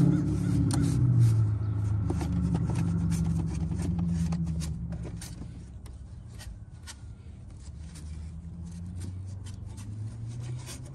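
Low hum of a motor vehicle's engine, fading away over the first half, with many short clicks and scrapes throughout.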